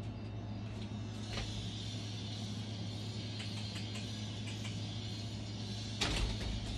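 Steady low room hum with a few light clicks, then a short, louder knock about six seconds in as a house door is opened.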